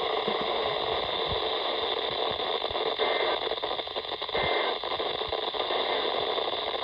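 Static hiss from a weather radio receiver on the NOAA Weather Radio channel with no voice on it: a steady, even noise with occasional faint crackles.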